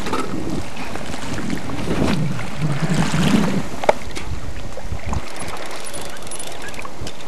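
Wind buffeting the microphone: a steady rushing noise, with a single sharp click a little under four seconds in.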